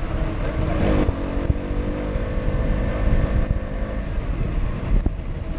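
Single-cylinder engine of a KTM Duke motorcycle running at road speed, under heavy wind rumble on the camera microphone. About a second in the engine's pitch shifts, then holds steady.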